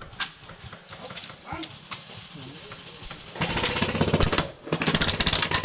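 Airsoft guns firing: scattered single shots, then about three and a half seconds in, rapid full-auto bursts that run on with a short break.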